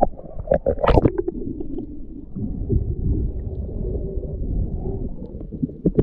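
Water sloshing and rumbling against a camera at and just under the surface, heard muffled and low, with a few sharper splashes about a second in.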